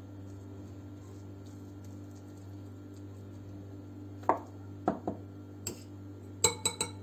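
Metal spoon on a glass bowl: a few scattered taps from about four seconds in, then a quick run of ringing clinks near the end. A steady low hum runs underneath.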